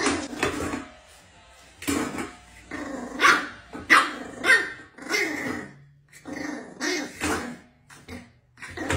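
A dog barking repeatedly, about a dozen barks in short runs with brief pauses between.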